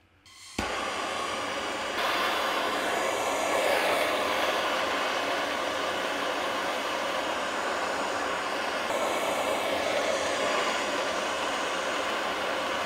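A steady rushing roar that starts suddenly about half a second in and grows louder about two seconds in: the heater warming the Stirling engine's hot end.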